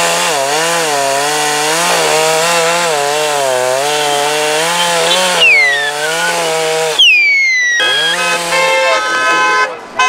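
Two-stroke chainsaw cutting into a eucalyptus trunk, its engine pitch wavering up and down under the load of the cut. About seven seconds in it breaks off, and a different pitched sound with falling glides and stepped tones takes over.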